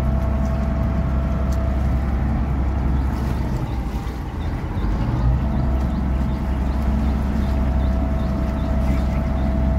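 A houseboat's engine running steadily under way, a low rumble with a steady hum above it, with water washing along the hull.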